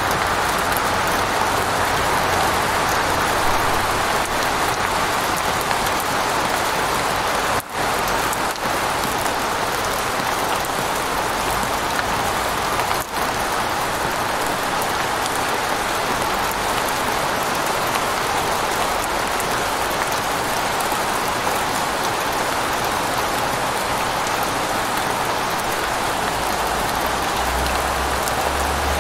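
Steady rain falling on a moving vehicle, heard from inside the cab as an even hiss. It drops out for an instant twice.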